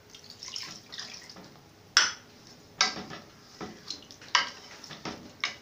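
Water poured into an aluminium pot of beef frying in ghee, then a wooden spoon stirring the meat and knocking sharply against the pot's side several times.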